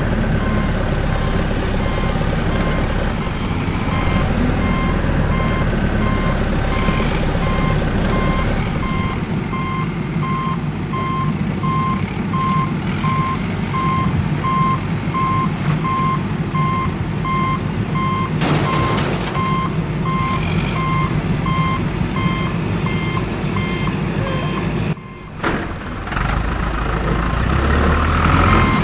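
Reversing-alarm beeping, a steady train of short, evenly spaced high beeps, over the rumble of a heavy vehicle's engine. A short clatter sounds about two-thirds of the way in, and the sound breaks off for a moment near the end.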